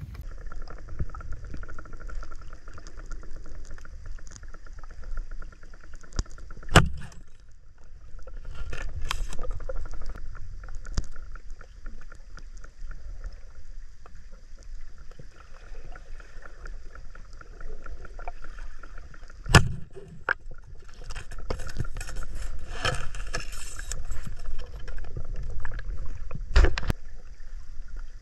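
Muffled underwater sound picked up by a camera in a waterproof housing: a low rumble of moving water with a faint steady hum, broken by several sharp clicks or knocks, the loudest about 7, 20 and 27 seconds in.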